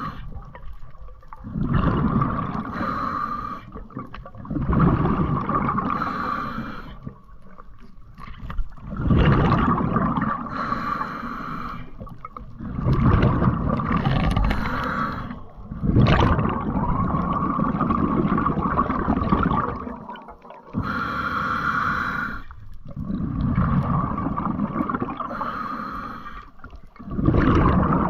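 Muffled underwater noise heard through a camera's waterproof housing, surging and fading every few seconds.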